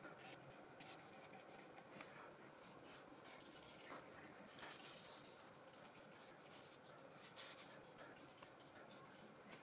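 Faint, uneven scratchy swishes of a paintbrush laying paint onto paper, with a brief sharp knock at the very end.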